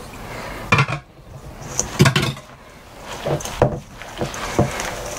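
A spatula scraping and knocking against a stainless steel mixing bowl while a wet crab cake mixture is folded, with several irregular knocks.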